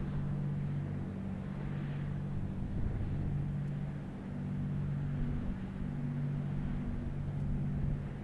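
Low, steady hum of a passing ship's diesel engines, with a throb that swells and fades every second or two.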